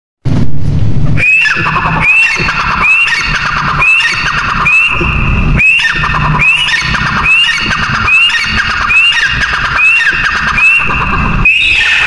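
Grey francolin (teetar) calling: a loud, shrill note repeated about once a second, each with a quick upward hook and then a falling tail, starting about a second in.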